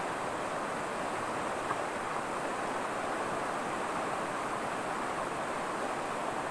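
Himalayan river rushing over a stony bed, a steady even noise.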